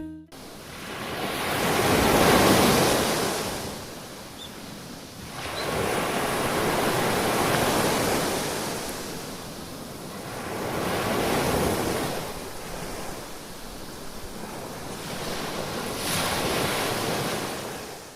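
Ocean surf: waves breaking and washing up the shore in four slow surges, one every four to five seconds.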